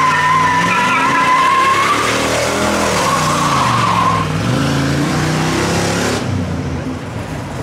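Pickup truck doing a burnout: the rear tyres squeal in a wavering high screech while the engine revs up and down. The squeal fades about four seconds in, and the engine and tyre noise falls away about six seconds in.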